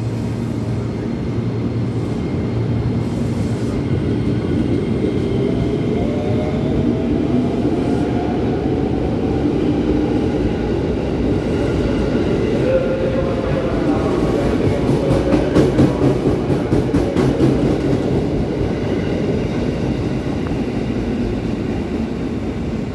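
Electric KRL commuter train running at the platform: a steady rumble with a motor whine that shifts in pitch, and wheels clicking quickly over rail joints for a few seconds past the middle, the loudest part.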